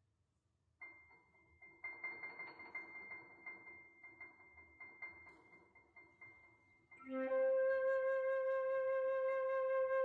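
Soft, repeated high piano notes ringing out, then about seven seconds in a concert flute enters loudly with a long held note.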